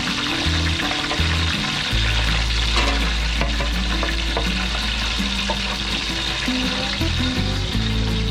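Hot oil sizzling and crackling in a wok, with scattered small pops, as freshly fried vegetables drain in a metal colander above it.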